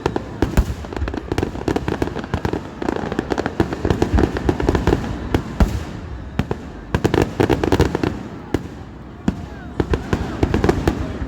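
Fireworks display: a rapid string of bangs and bursts, coming thickest about three to five seconds in and again around seven to eight seconds.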